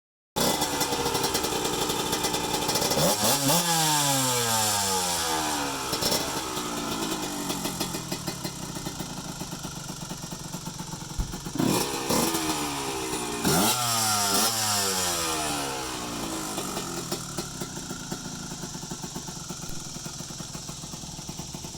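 Off-road vehicle's engine being revved in short blips, about four times, the pitch falling slowly back toward idle after each one.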